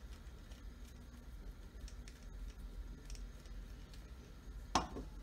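Faint small clicks and scrapes of a flathead screwdriver turning out a banjo fitting on a Valken V12 airsoft HPA engine, then a single sharp knock near the end.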